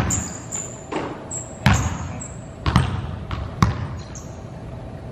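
Basketballs bouncing on a hardwood gym floor, sharp echoing thuds about once a second, with short high sneaker squeaks between them.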